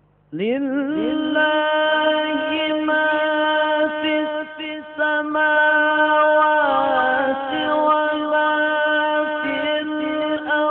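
A man reciting the Qur'an in the melodic tilawah style: the voice comes in about half a second in and holds one long, steady note, with ornamented wavering turns in the middle.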